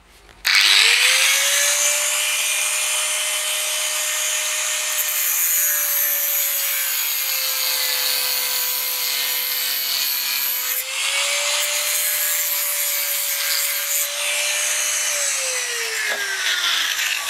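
Angle grinder with a cutting disc spinning up about half a second in and grinding a broken bolt stub flush with a washing machine gearbox shaft, its motor whine sagging under load in the middle. The grinder winds down near the end.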